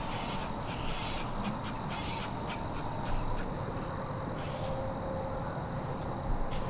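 Quiet woodland ambience: a low rumble under a steady high hum, with faint scattered ticks.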